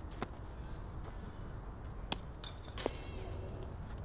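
Sharp knocks of softballs being hit and fielded in infield ground-ball practice, four in all, the loudest about two and three seconds in. A brief high-pitched cry comes between the later knocks.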